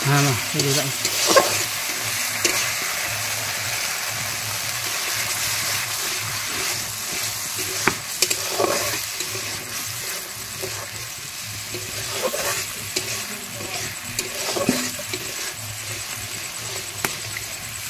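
Spice paste sizzling steadily in hot oil in an iron kadai, with a metal spoon stirring and scraping it against the pan every few seconds.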